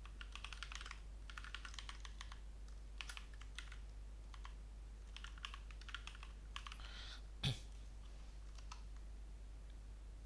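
Typing on a computer keyboard: bursts of rapid key clicks with short pauses between them, then a single louder thump about seven and a half seconds in and a few last scattered clicks.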